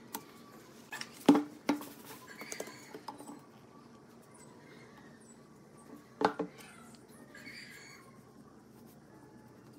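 Wood being handled on a workbench: a few sharp knocks of wood against wood and the bench, the loudest about a second in and another pair about six seconds in, with short soft scratchy rustles between them as glue is squeezed out and brushed onto a pine strip.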